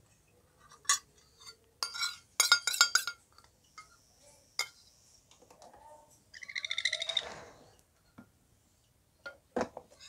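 Light glassy clinks of feeding utensils: one about a second in, then a quick cluster around two to three seconds. About six and a half seconds in, a hand-fed sun conure chick gives a rapid, pulsing begging call lasting about a second and a half.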